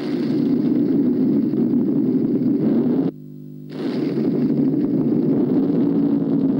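Loud engine roar, cut off abruptly about three seconds in for about half a second, then back at full level.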